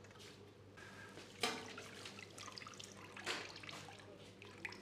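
Braising broth pouring and trickling back into a large steel stockpot, from a ladle and from a perforated steel rack lifted out of it. There is a sharper, louder splash about a second and a half in and another at about three seconds.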